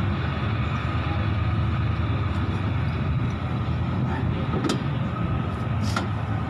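Steady low mechanical rumble in a workshop, with two sharp metallic clicks about a second apart near the end as a hand tool meets the engine's cylinder head.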